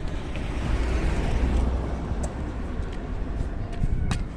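Fiat Palio 1.0 engine running with a steady low exhaust rumble, a swell of noise over the first two seconds, and a few sharp clicks, one near the end.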